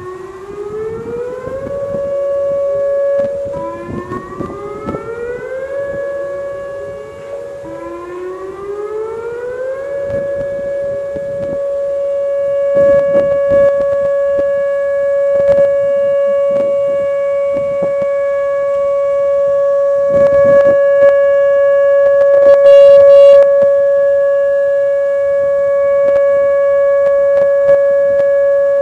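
Whelen outdoor warning sirens for a nuclear power plant test, several winding up in turn, each rising in pitch and then holding, before all settle into one loud steady alert tone. A few brief knocks and a short high chirping sound come through near the end.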